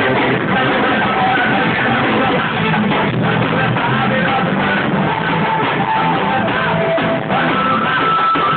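Forró music playing loud and steady, a passage with held melody notes and no transcribed singing.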